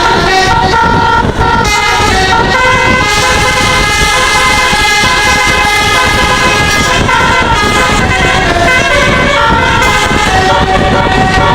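Telolet musical air horn on a bus playing a tune: several horn tones sound together and step from note to note every fraction of a second. A loud, continuous rumble runs underneath.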